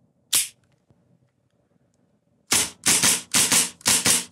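A gas blowback Hi-Capa 5.1 airsoft pistol fired rapidly without BBs, about four to five shots a second, the slide cycling fully on each shot. The run of shots starts about two and a half seconds in, after a single click near the start.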